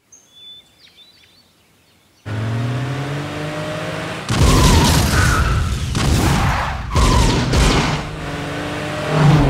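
Faint birdsong briefly, then a car engine comes in, rising in pitch. It is followed by repeated surges of revving and tyre squeal, about once a second, as the car is driven hard through turns.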